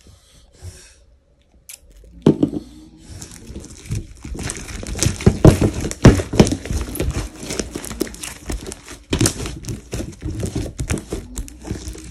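Fluffy slime being squeezed and kneaded by hand: dense, irregular wet crackling and popping clicks with squelches, starting about two seconds in after a quiet opening.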